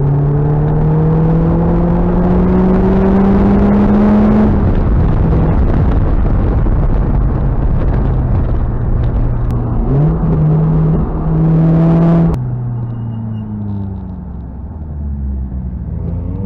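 Lotus Elise 220's supercharged four-cylinder engine heard from inside the open cockpit, with wind and road noise. The engine note climbs steadily as the car pulls for about four seconds. About ten seconds in, the revs jump up and hold. A couple of seconds later the sound drops suddenly in loudness, and near the end the engine note falls and then climbs again.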